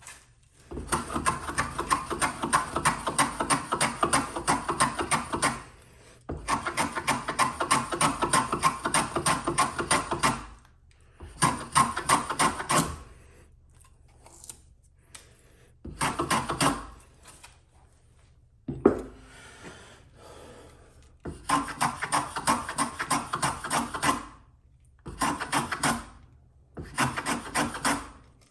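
Hand tool cutting white pine in bursts of rapid, even scraping strokes, each burst lasting a few seconds with short pauses between. A single sharp knock sounds a little past the middle.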